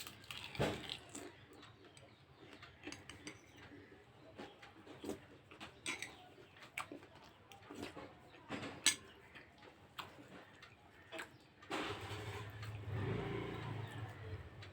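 Someone eating a meal: scattered small clicks and taps of food and a plate, with chewing. From about twelve seconds in, a denser, steadier rustling sound with a low hum joins in.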